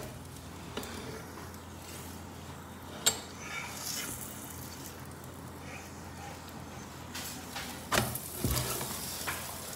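Stuffed paratha shallow-frying in butter and oil on a flat tawa, a steady sizzle with a sharp click about three seconds in. Near the end the sizzle grows louder and spatters, with a couple of knocks on the pan.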